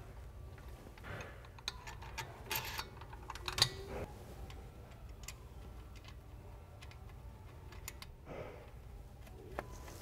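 Light metallic clicks and taps from an Allen key turning the pad-retaining bridge bolt into a Wilwood four-piston brake caliper with the pads in place. The clicks are scattered, bunched between about one and four seconds in, and come again near the end, over a low steady hum.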